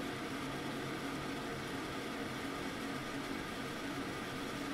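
Kitchen range hood exhaust fan running steadily: an even rush of air with a low hum underneath.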